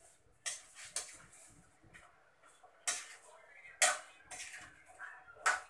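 A cooking utensil scraping and clanking against a metal pan as seasoned chicken pieces are stirred and mixed, in irregular strokes with about five louder clanks.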